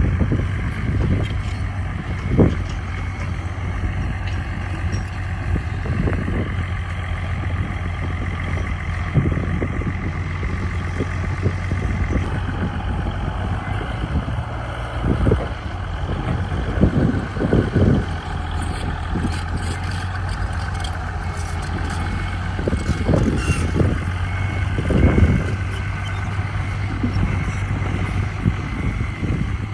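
Heavy diesel earthmoving machinery running steadily under load, with scattered clunks and knocks. A faint repeating high beep comes in during the second half.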